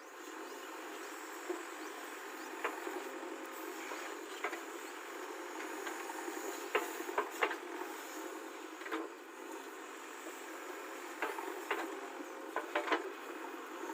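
JCB backhoe loader's diesel engine running steadily, with a dozen or so sharp knocks here and there, several close together about halfway through and again near the end.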